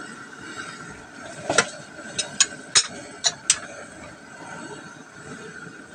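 Pork belly cooking in soy sauce in a wok, a steady low sizzle broken by six sharp pops or clicks between about one and a half and three and a half seconds in. Calamansi juice trickles in as a thin stream near the end.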